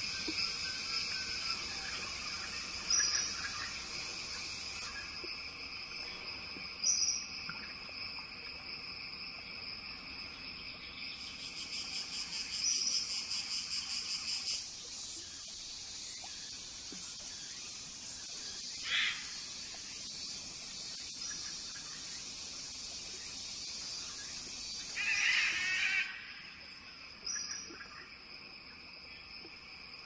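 Steady, high-pitched chorus of insects droning without pause, with a few short bird calls breaking through at intervals. The mix of the chorus shifts about halfway through.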